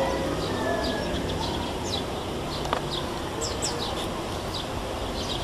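Birds chirping: short, high, falling chirps come several times a second, over a steady background hiss. A single light click sounds a little less than three seconds in.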